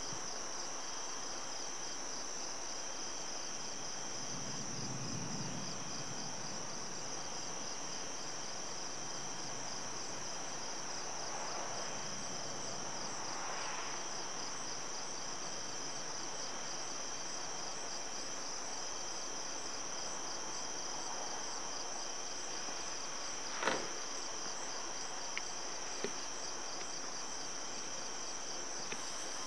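A steady, high, finely pulsing chorus of crickets on a summer night. A faint low rumble swells briefly about five seconds in, and a few sharp clicks come near the end, the first the loudest.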